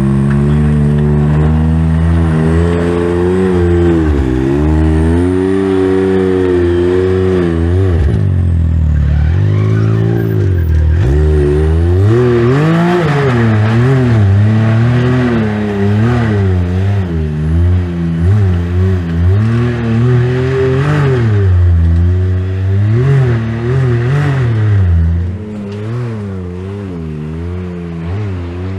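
Can-Am X3 Turbo side-by-side engine revving hard and unevenly as the machine works up a rock climb. The throttle is blipped up and down again and again, in quick repeated bursts through the middle, and the engine gets quieter near the end.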